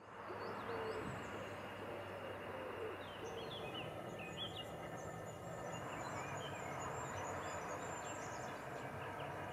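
Outdoor ambience: small birds chirping and singing in short high phrases over a steady background hiss.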